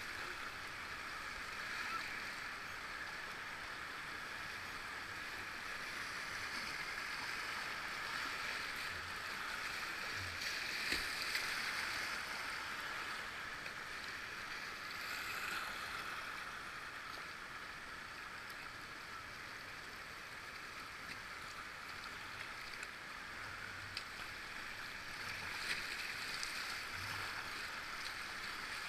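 Whitewater river rapids rushing steadily, heard from a kayak on the water, with a few brief knocks near the middle.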